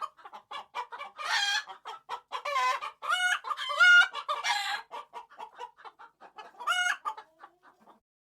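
A flock of hens clucking in a rapid run of short clucks, with several longer, drawn-out calls between about one and five seconds in and once more near seven seconds. The sound stops just before the end.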